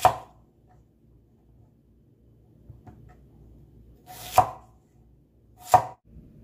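Kitchen knife slicing through an onion and knocking on a wooden cutting board: three cuts, each a short crunch ending in a sharp knock, one at the start and two about a second and a half apart near the end.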